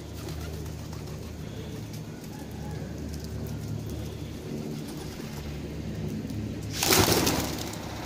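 Rock pigeons cooing in low, steady tones. About seven seconds in, a loud, brief clatter of wing flapping as the flock takes off.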